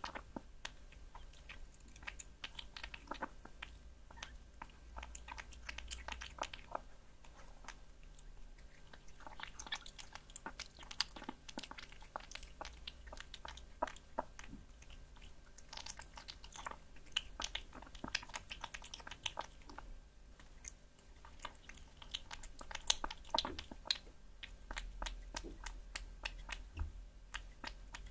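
A cat chewing and licking raw meat: quick wet clicks and smacks in runs of a few seconds, with short pauses between.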